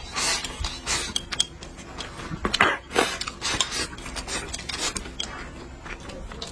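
Eating utensils clicking and scraping against bowls and plates during a meal, in irregular short clicks with a couple of louder noisy bursts near the middle.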